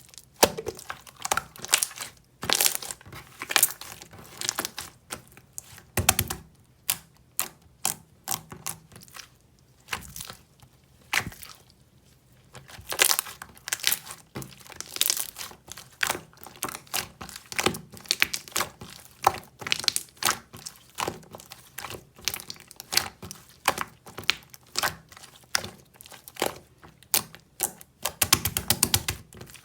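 Irregular crinkling and crackling with many sharp clicks, coming in clusters with short pauses between them.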